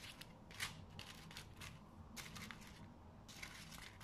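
A fork prodding and lifting crisp deep-fried dough bites on a paper towel: a series of short crackles and paper rustles, the sharpest about half a second in.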